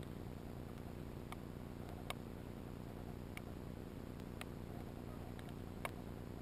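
Underwater sound over an oyster reef: a steady low rumble with irregular sharp clicks, about one or two a second, the loudest about two seconds in and again near the end.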